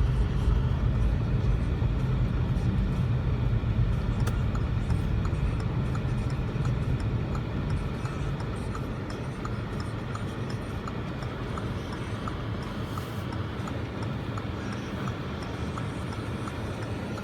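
Steady low rumble of a car's engine and tyres heard from inside the cabin while driving, growing quieter over the first half and then holding steady. A faint, regular ticking runs through the second half.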